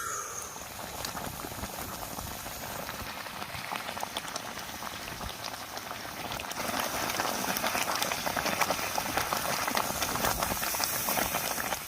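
Mango cooking in a pot over heat: a steady hiss full of fine pops and crackles, getting louder about six and a half seconds in.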